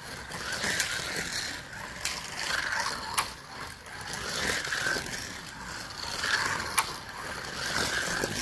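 Electric slot cars whirring around a plastic track, the small motors and wheels swelling and fading every second or two as the cars pass close by. A few sharp clicks stand out.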